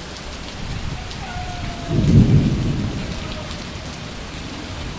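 Heavy rain falling steadily, with a low rumble of thunder about two seconds in that fades away over a second or so.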